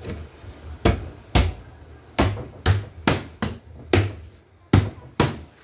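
Plywood back panel of a speaker cabinet being knocked into place by hand: about ten sharp wooden knocks, irregularly spaced.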